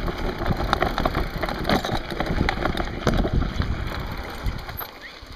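Mountain bikes rolling down a stony dirt singletrack: gravel crunching and many short rattling knocks from the jolting, over a low rumble. It quietens near the end.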